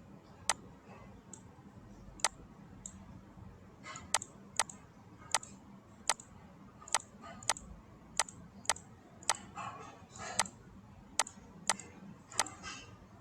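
Computer mouse and keyboard clicks: about fifteen sharp single clicks at an uneven pace, roughly one a second, with a few softer key or desk sounds between them.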